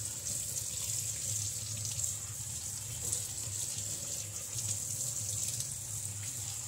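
Kitchen tap running steadily into the sink while strawberries are rinsed in plain water under it.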